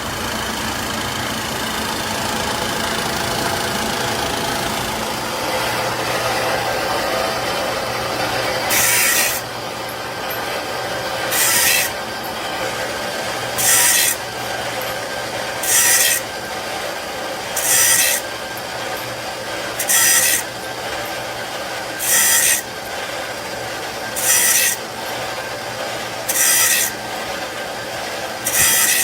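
Workshop machinery running steadily. From about a third of the way in, a short rasping hiss repeats about every two seconds in an even machine cycle.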